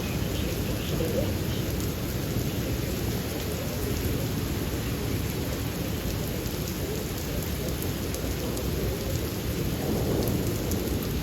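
Thunderstorm: steady heavy rain with a low, continuous rumble of thunder, swelling slightly near the end.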